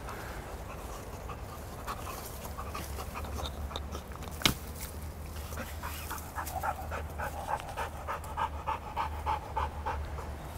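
American pit bull terrier panting hard through an open mouth, about three quick breaths a second, louder in the second half, out of breath from tugging on a bite toy. One sharp click about halfway through.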